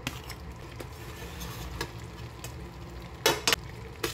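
Metal tongs clicking as pieces of fried chicken are set one by one into a pan of lightly simmering cream sauce, over a faint steady sizzle. The loudest sounds are two clacks a little over three seconds in.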